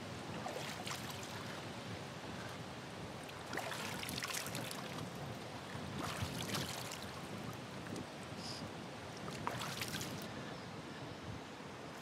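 River water running, a steady wash with a few brief louder moments about three and a half, six and nine and a half seconds in.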